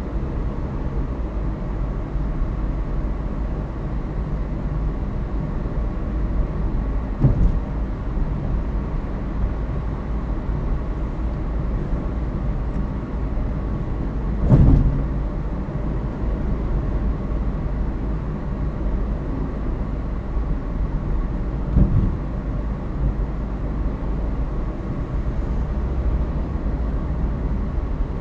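A car driving at about 50–60 km/h, heard from inside the cabin through a dash cam's built-in microphone: a steady rumble of road and engine noise. Three brief thumps come several seconds apart, the middle one the loudest.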